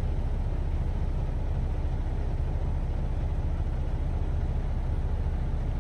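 Semi truck's diesel engine idling steadily, a constant low rumble heard from inside the cab.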